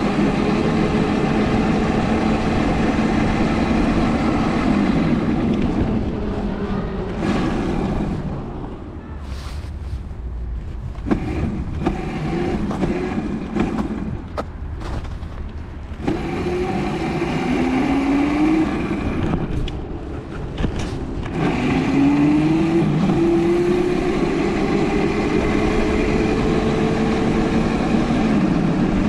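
Dirt bike motor running under way, its pitch rising with the throttle several times, with heavy wind noise on the microphone. Through the middle stretch it runs quieter, with knocks and rattles as the bike crosses rough grass.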